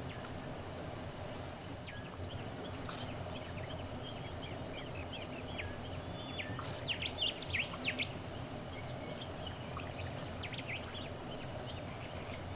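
Wild birds calling with short, sharp, quickly sliding notes, thickest in a flurry about seven to eight seconds in. Behind them are a fast, even, high-pitched pulsing and a low steady background rumble.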